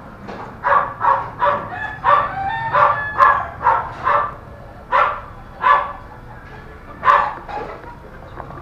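A dog barking outdoors: a quick run of short barks, about three a second, for the first few seconds, then several more barks spaced a second or so apart.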